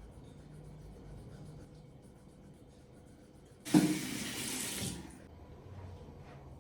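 A water tap turned on into a sink about halfway through, running for just over a second and then shut off.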